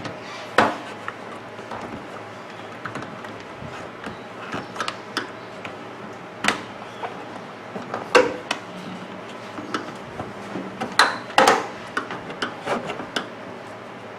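Flathead screwdriver prying and scraping at the plastic parts of a microwave oven door, with scattered sharp clicks and knocks as the pieces are levered and shift.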